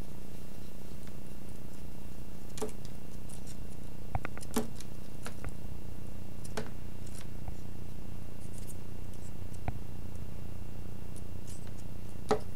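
Scattered light clicks and taps, about eight of them at uneven gaps, from a dangling feather cat toy and its play knocking against a rattan sofa frame, the loudest near the end. A steady low hum runs underneath.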